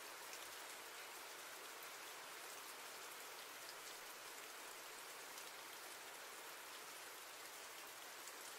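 Faint, steady rainfall: an even hiss of many small drops.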